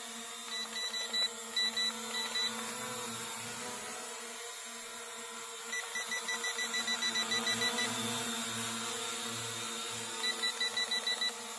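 Toy quadcopter drone and its remote control beeping: three runs of short, high electronic beeps, a few in the first seconds, about ten in the middle and about seven near the end, over a steady hum. This kind of beeping comes while the drone's controls are being calibrated or trimmed before flight.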